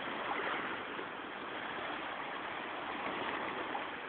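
Steady seaside ambience: an even hiss of sea waves and wind at the shore, with no distinct events.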